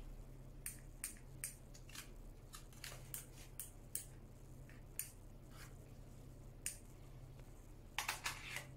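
Faint, short clicks from handling an STTi SP8 gas airsoft pistol: the magazine release pressed, the magazine drawn out of the grip and worked back in. A quick run of clicks comes near the end.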